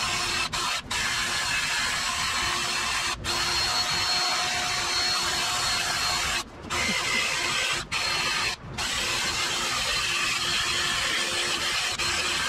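Cordless Ryobi 18 V tool spinning a wire brush wheel against the metal oil pan mounting surface of the engine block, scouring off old RTV sealant. It runs with a steady whir and stops for a moment several times as the trigger is let off.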